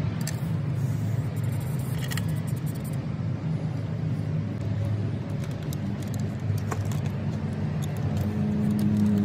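A steady, low mechanical drone of a motor running. A few light metallic clicks from hand tools on the engine block sound over it.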